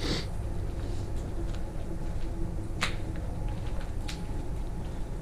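A few scattered sharp clicks and knocks, the loudest about three seconds in, over a steady low rumble.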